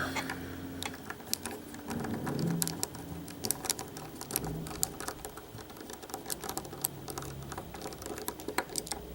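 Irregular small clicks and taps of a lock and metal tools being handled, with no steady rhythm.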